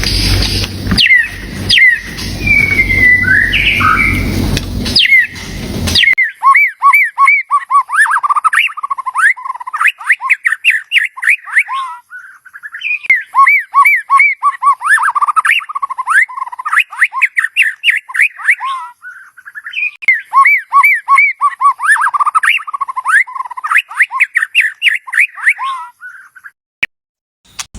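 White-rumped shama singing: fast runs of whistled, chattering notes that swoop up and down in pitch, in long repeated phrases with short pauses between them. For about the first six seconds a steady hiss and rumble lies under the song, then the song is heard clean.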